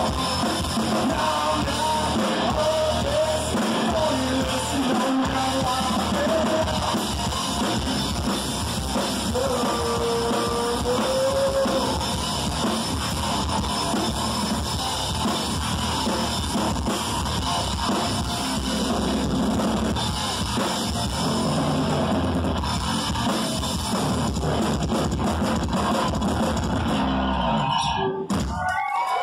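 Live rock band playing loud: distorted electric guitar, bass guitar and drum kit. The music breaks off abruptly near the end.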